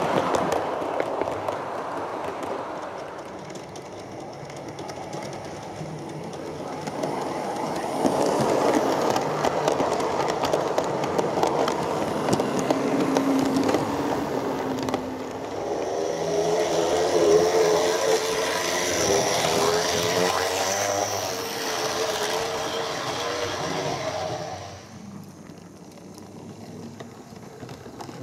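Model trains running along a model railway layout: the rattle of small wheels over the track and the hum of the locomotive motors, swelling as stock passes close, with a wavering pitched tone in the latter part, and fading away near the end.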